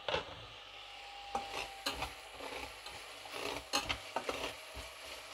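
Slotted metal spatula stirring and scraping through simmering curry sauce in a stainless-steel pan, with irregular scrapes and knocks over a steady sizzle. There is a sharp clack at the very start.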